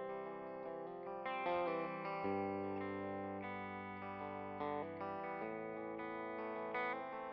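Background music: guitar-led instrumental track with effects-processed, lightly distorted guitar holding chords that change every second or two.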